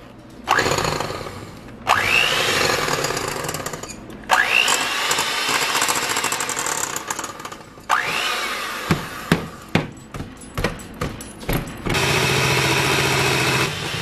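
Electric hand mixer switched on and off several times, its motor whining up to speed at the start of each run. After the runs come a string of sharp clicks and knocks, and near the end the mixer runs steadily.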